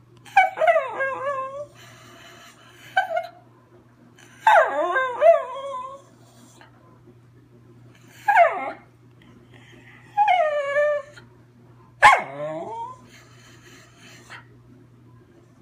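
Schnauzer singing: six high-pitched whining, howl-like calls and yips with pauses between them, the longer ones wavering and several sliding steeply down in pitch.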